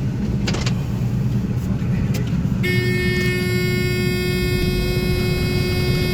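Combine engine running with a steady low rumble inside the cab, with a few clicks about half a second in. About two and a half seconds in, a steady high whine made of several pitches starts suddenly and holds.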